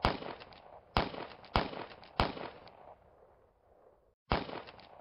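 Gunshot sound effects: single shots about a second apart, each cracking and dying away, then after a brief gap a quick run of shots near the end.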